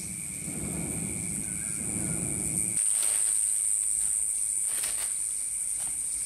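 A steady, high insect drone runs throughout. Under it, for the first few seconds, the low rumble of the hand-cranked spinning blower pushing air into the clay smelting furnace cuts off abruptly about three seconds in. A few light clinks of charcoal lumps being handled follow.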